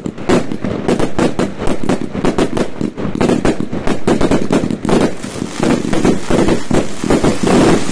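Fireworks going off: a rapid, continuous volley of sharp bangs, several a second, merging into denser crackling in the last couple of seconds.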